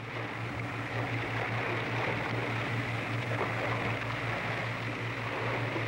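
Boat engine running steadily: a low, even drone over a steady hiss.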